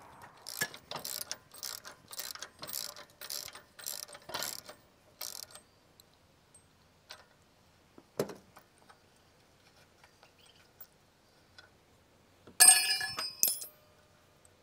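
A ratcheting wrench clicking through about a dozen strokes, two to three a second, as the nut on a tractor loader pin's bolt is loosened. There is a single knock about eight seconds in, then a loud ringing clink of metal parts near the end.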